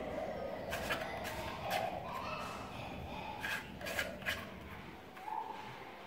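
A vacuum cleaner's round plastic dial being pressed and turned on its plastic casing, giving a few sharp plastic clicks and rubbing.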